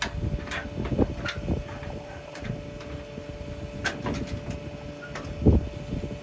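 Machinery running with a steady hum while a folding corn head is readied, with a scattering of sharp metal clanks and knocks, the loudest about five and a half seconds in.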